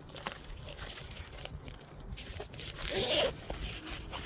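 A short gritty scrape about three seconds in, with light scuffs and clicks around it: something rubbing against rough asphalt roof shingles.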